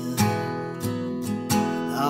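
Acoustic guitar strumming chords in an instrumental passage of a slow country song, with two strong strums and the chords ringing on between them.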